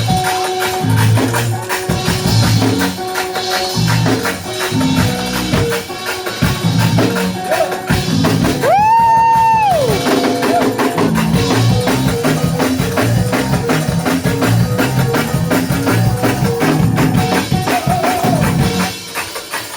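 Loud live church praise music: a tambourine shaking over bass and drums. About nine seconds in, a single high note slides up, holds for about a second and slides back down.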